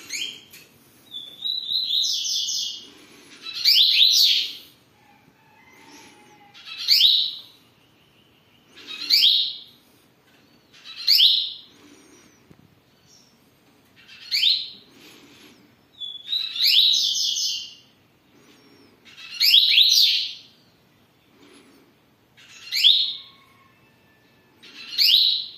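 Caged double-collared seedeater (coleiro) singing: loud, high song phrases about a second long, repeated every two to three seconds, each with quick rising whistled notes.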